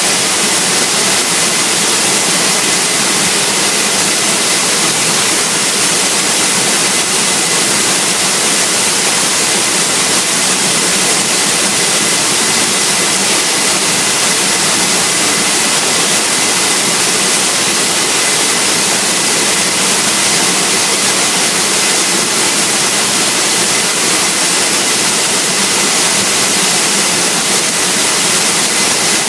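Waterfall water falling close by: a loud, steady rush with no change.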